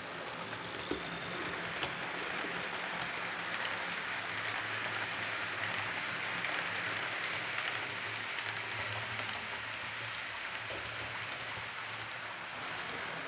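H0-scale Roco model intermodal freight train running past on the layout track: a steady rolling hiss of wheels on rail with a low motor hum. It swells as the wagons pass and eases near the end.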